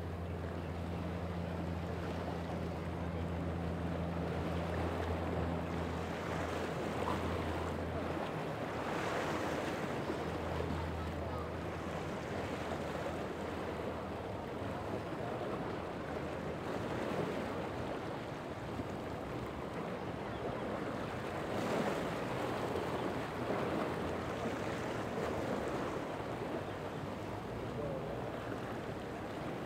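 A boat engine's steady low hum that fades away over the first ten seconds or so, then surf washing and wind buffeting the microphone, swelling and easing.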